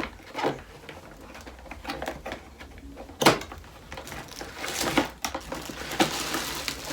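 A selfie ring light being unpacked from its box: scattered clicks and knocks of plastic and cardboard, one sharp click about three seconds in, then packaging rustling near the end.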